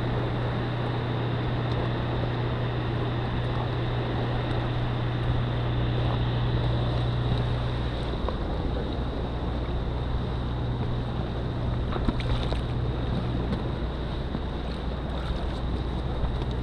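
Steady wind noise on the microphone, with a constant low hum underneath that drops lower about halfway through; a few faint ticks later on.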